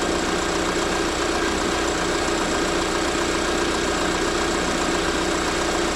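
Lada Vesta NG engine idling steadily in the open engine bay while warming up. It is being listened to for exhaust camshaft knock, which the later check rules out.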